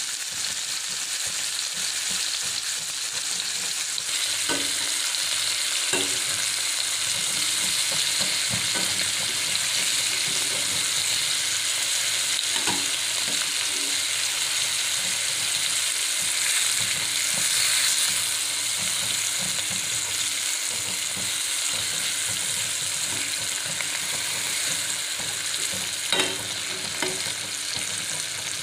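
Dry mackerel pieces sizzling steadily in hot oil in a stainless steel pan, with a metal spatula now and then knocking and scraping against the pan as the fish is turned; the sharpest knock comes near the end.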